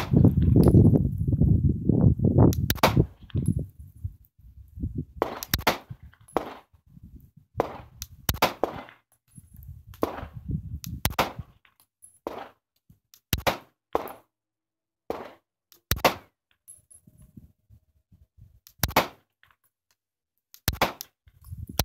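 Glock 17 9mm pistol fired single shots at an unhurried, uneven pace, about twenty in all, spaced from half a second to two seconds apart and thinning out in the later part, as it cycles the Magpul GL9 PMAG magazine without a stoppage. Wind rumbles on the microphone through the first few seconds.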